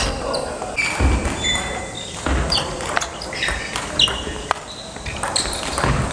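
Table tennis rally: the ball clicks sharply off rubber-covered bats and bounces on the table about once a second, as an attacker plays against a chop defender. Between the hits, sports shoes squeak briefly on the hall floor.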